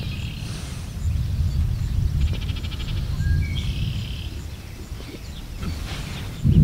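Thunder rumbling low and rolling, easing off in the middle and swelling again sharply near the end. Birds chirp and trill over it.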